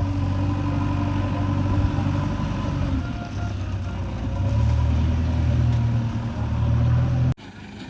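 Heavy diesel engine running steadily with a low note; it gets louder and its note shifts about four and a half seconds in, then the sound cuts off abruptly near the end.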